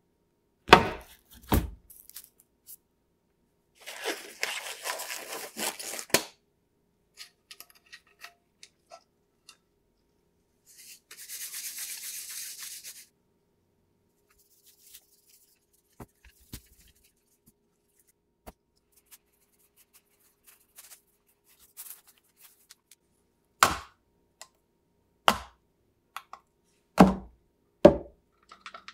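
Hands handling materials on a work table: sharp knocks of hard objects being set down, two early on and four close together near the end, with a couple of seconds of rustling about four seconds in and a brief steady hiss around twelve seconds.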